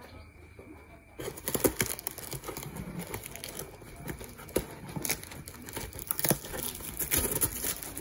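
Packing tape being peeled and ripped off a cardboard box, with crackling and scraping of the cardboard flaps. It starts about a second in and goes on in irregular ripping strokes.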